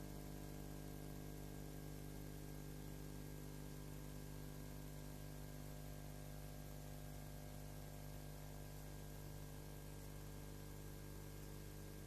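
A low, steady electrical hum with many fixed tones and a faint hiss over it, unchanging, with no other sound: the background noise of a silent film's soundtrack.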